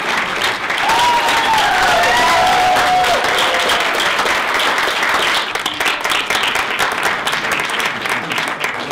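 Audience applauding in a cinema hall, a dense steady clapping that thins out after about five seconds. A brief pitched call rises over it between about one and three seconds in.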